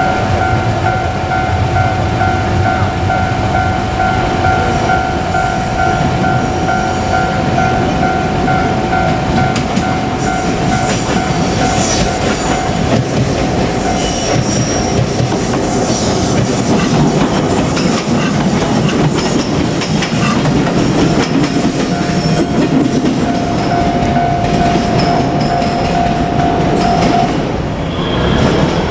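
A Japanese level-crossing warning bell rings steadily with its repeating electronic tone. About ten seconds in, a JR Kyushu 817 series electric train passes, its wheels clattering over the rail joints. The bell stops shortly before the end.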